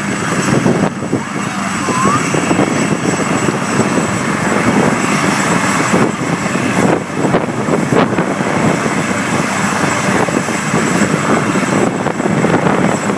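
Leonardo AW139 twin-turbine helicopter running close by: a dense, steady rotor and turbine noise with a thin high whine held over it.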